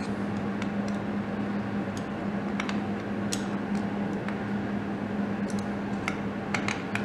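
Faint, scattered metallic clicks of a hex key working small M4 Allen-head bolts into a crank sensor mount, over a steady low background hum.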